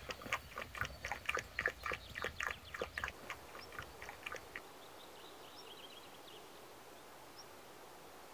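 A puppy lapping milk from a metal bowl, a quick run of wet clicks about four or five a second that stops about three seconds in.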